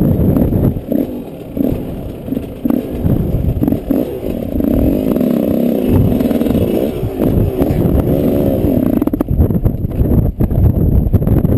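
Yamaha 125 off-road motorcycle engine running, its pitch rising and falling as the throttle is worked near the middle.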